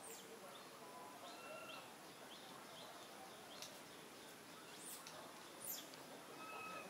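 Faint outdoor ambience with scattered short bird whistles and quick high chirps, the clearest chirps coming just past the middle and again a little later.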